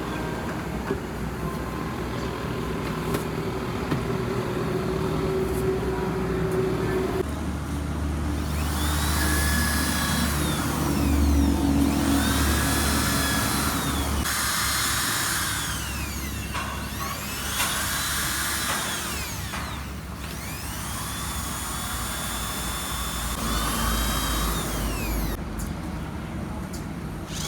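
Factory machinery running. From about eight seconds in, an electric motor spins up with a rising whine, runs briefly and winds down again, about five times in a row, over a steady low hum.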